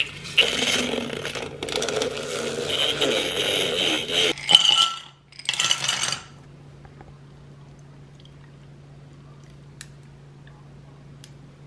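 A whisk beating instant coffee, sugar and hot water in a glass carafe: fast clinking and scraping against the glass, stopping after about six seconds. Then only a faint low hum with a couple of small clicks.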